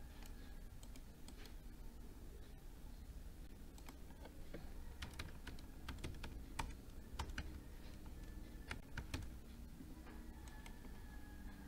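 Faint, scattered keystrokes on a computer keyboard as a word is typed, over a low steady hum.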